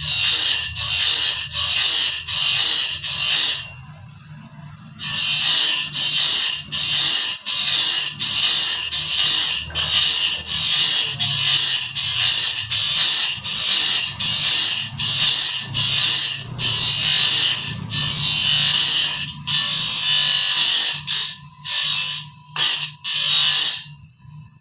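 Bandsaw blade sharpening machine grinding the blade's teeth one after another: a hissing grind repeating about twice a second over a steady motor hum, pausing for about a second around 4 s in and breaking up near the end.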